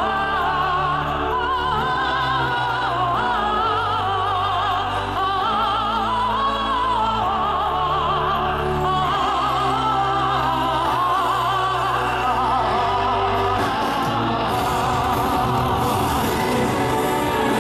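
Show music: operatic-style singing with a wide vibrato over orchestral accompaniment with sustained bass notes. The held bass notes drop away about thirteen seconds in.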